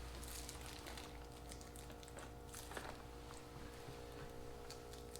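Faint scrapes and light clicks of a hand guard's bar-end mount being slid into the end of a scooter handlebar, over a steady low hum.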